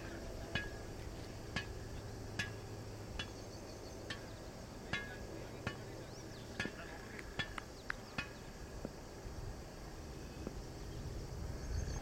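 Short, sharp chirps repeating roughly once a second, from an unseen small animal, over a steady low outdoor rumble. The chirps come closer together about two thirds of the way through.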